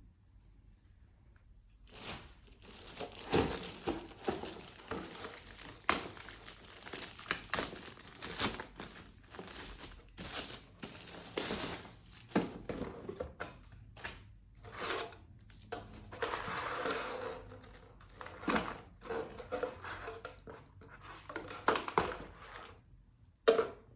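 Parcel packaging being handled and unwrapped: irregular crinkling and rustling with scattered sharp clicks and knocks, starting about two seconds in.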